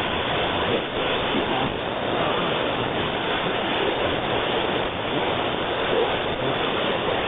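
Steady shortwave hiss and static from an FDM-S2 software-defined receiver in AM mode tuned to 4940 kHz on the 60-metre band, where the weak Voice of Strait signal lies buried in the noise. The sound cuts off above about 4 kHz, the limit of the receiver's 7 kHz AM filter.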